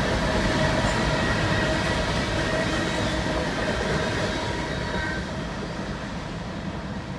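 Freight cars (covered hoppers and tank cars) rolling by on the rails: a steady rumble and rattle of wheels and trucks with faint steady wheel-squeal tones over it, fading steadily as the tail of the train moves away.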